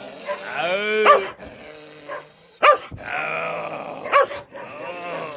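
Sarail hound barking and growling aggressively. A drawn-out snarling call comes in the first second, then two sharp barks with growling between them.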